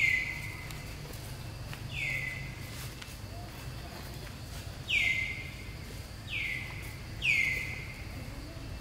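High-pitched animal calls, five in all at irregular intervals, each starting with a sharp drop in pitch and then held briefly; the first, the third and the fifth are the loudest.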